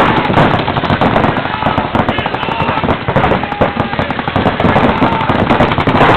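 Paintball markers firing many rapid, overlapping shots in a continuous crackle.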